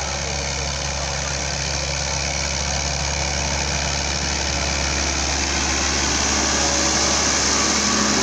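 A diesel farm tractor's engine runs steadily under heavy load as it pulls a loaded trailer, growing slightly louder near the end.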